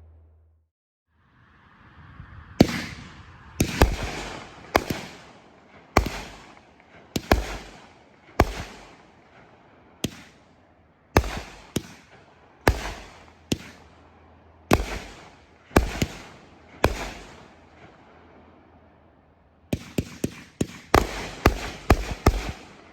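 A 500-gram, 40-shot consumer firework cake firing. A short hiss leads into single shots about one a second, each with a fading tail. Near the end comes a rapid volley of about eight shots as the finale.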